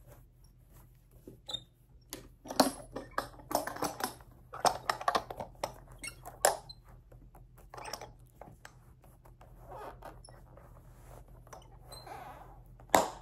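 Leather lever lifting belt being handled and fastened: irregular rustling, creaking and clicking of the belt and its metal lever, with one sharp click near the end.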